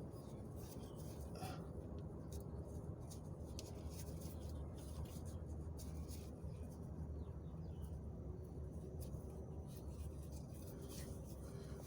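Faint scratching and small clicks of a rubber oil cooler gasket being worked by hand into its groove, over a steady low hum.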